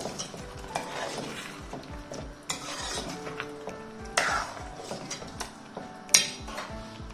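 Metal spoon stirring thick chickpea curry in a metal kadai, scraping through the gravy and clinking against the pan's sides in repeated strokes; the loudest is a sharp clink about six seconds in.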